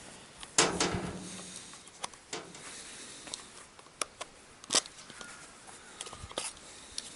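Light clicks and knocks of small metal and plastic parts being handled during reassembly of a GAZelle van's heater fan motor. There are about half a dozen, scattered, with the loudest about half a second in.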